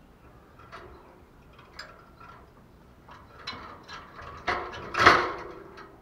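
Light clicks, then two louder rattling knocks about four and a half and five seconds in, from a caged spotted dove moving against its wire cage and plastic feeder jar.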